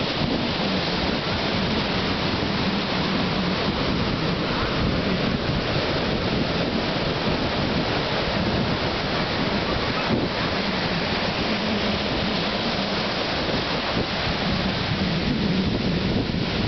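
Ocean surf breaking and washing over a shallow sandy beach, a steady rushing noise, with low wind rumble on the microphone.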